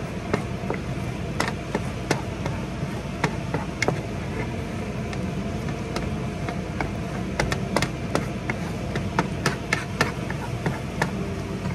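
Kitchen exhaust fan running steadily, with frequent irregular clicks and taps of a wooden spatula against a metal griddle pan as eggs are scrambled.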